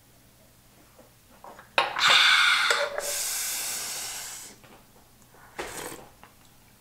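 A woman's forceful breath out after a shot of soju: a sharp 'khaa' about two seconds in, running into a long hissing exhale that fades out, then a short breath in near the end.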